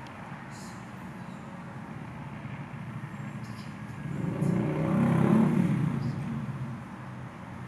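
Steady low rumble that swells to its loudest about five seconds in and fades again by about seven seconds.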